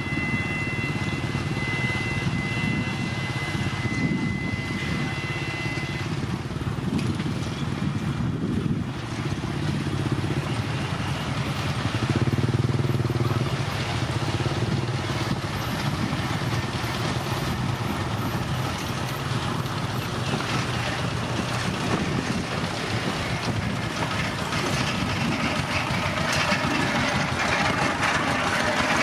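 Heavy diesel earthmoving machinery running continuously at a worksite, with a steady high whine that stops about six seconds in.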